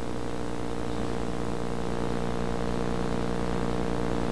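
A steady low hum with several even tones, holding at one level and not changing.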